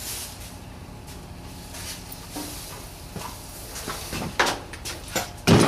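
Scattered clicks and knocks of hand tools and metal parts being handled, with a few louder sharp knocks near the end.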